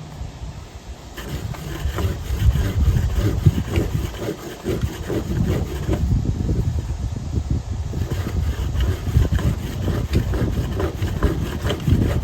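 Fire roll of cotton and wood ash being rolled hard back and forth under a board, a fast run of rubbing strokes with a brief break partway through. The friction is heating the roll to make it ignite.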